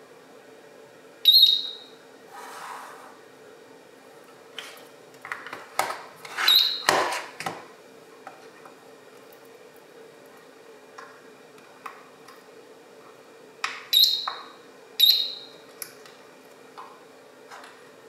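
Short high beeps from the Slim Line 2 alarm unit's buzzer, four in all: one about a second in, just after the remote's disarm button is pressed, one among clicks and rattles of the plastic casing being handled midway, and two about a second apart near the end.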